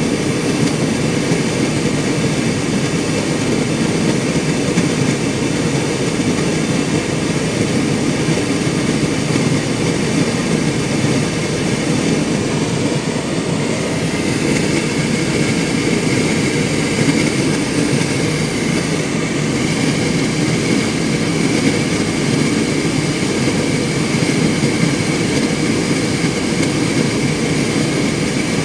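Hotpoint Ultima S-Line tumble dryer running: a steady, even motor and fan noise.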